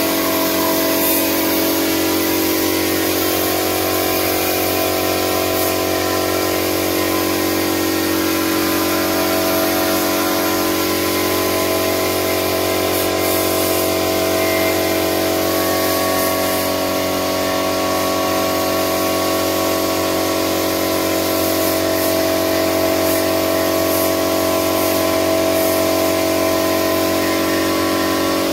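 Compressed-air spray gun hissing steadily as it sprays wood polish, with the steady hum of the air compressor feeding it running underneath throughout.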